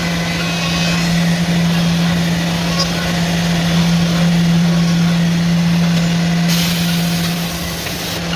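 CNC horizontal panel-drilling machine running with a steady low hum, and near the end a brief hiss of compressed air.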